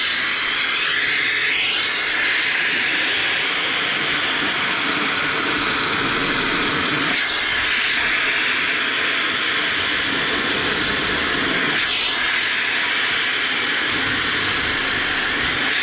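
HiKOKI RP250YD dust extractor running steadily with a loud, even hiss.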